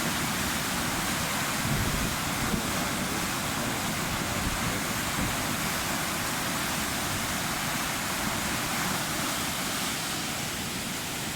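Water rushing steadily through the open sluice gates of a weir, released to draw the water level down ahead of a storm.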